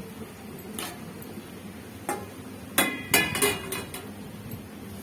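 A metal utensil knocking against metal cookware: a couple of light clinks, then a loud cluster of four ringing strikes about three seconds in.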